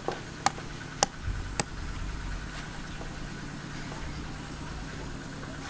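Cleaver chopping on a wooden cutting board: three sharp knocks about half a second apart near the start. A steady low hum runs underneath.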